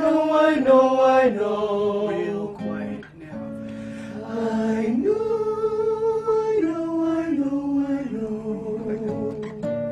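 Singing with acoustic guitar: long held notes that step up and down in pitch, as in a vocal warm-up, with a short break about three seconds in.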